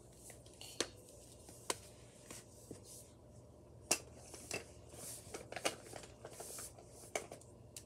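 Hands handling small objects close to the microphone: a string of separate sharp clicks and taps, with soft scratchy rustling in between.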